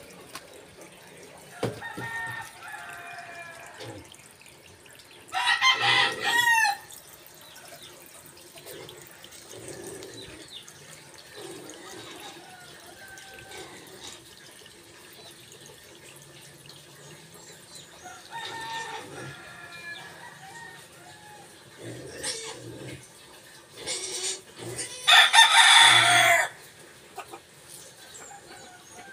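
Chickens calling: two loud crows, about six seconds in and near the end, with softer clucking calls between them.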